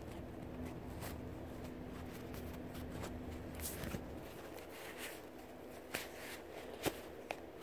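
Faint room noise with a low steady hum over the first half and scattered light clicks and knocks, the loudest near the end.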